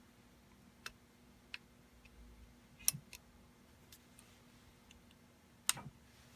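Scattered small clicks and taps of metal parts being handled while an FX Impact air rifle's barrel is fitted into the action, about six in all, with the loudest about three seconds in and another loud one near the end.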